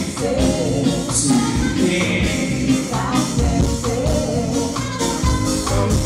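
Reggae band playing live with bass, drums and keys, and a female backing singer's voice carrying the melody.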